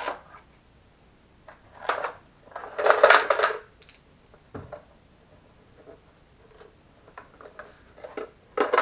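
Handling of a plastic aquarium filter as its parts and a bag of ceramic filter rings are taken out: a few short bursts of rustling and clicking, loudest about three seconds in, with a sharp click midway.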